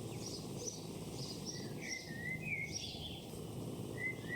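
Countryside ambience: small birds chirping in short calls over a faint steady background hiss.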